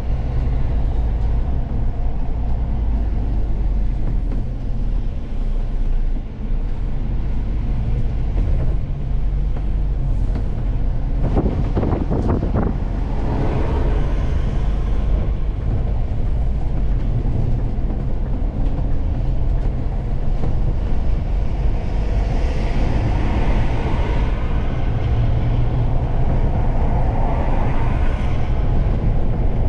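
Cab noise of a Scania Fencer F1 coach on the move: a steady low engine and drivetrain drone with road and tyre noise. A short burst of knocks and rattles comes about eleven seconds in, and a hiss of tyres and wind grows louder in the second half.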